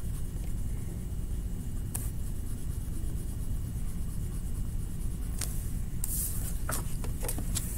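Faint scratching and tapping of coloring strokes on paper, a few short ones about two seconds in and a cluster near the end, over a steady low rumble.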